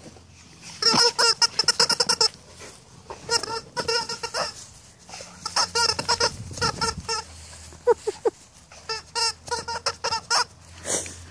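Alaskan Malamutes play-fighting, giving runs of rapid, high-pitched squeaky yips and whines in four bursts of a second or so each.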